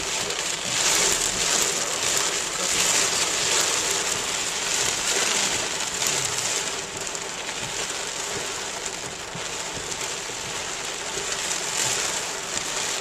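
Heavy rain falling steadily in a downpour, a dense patter of drops.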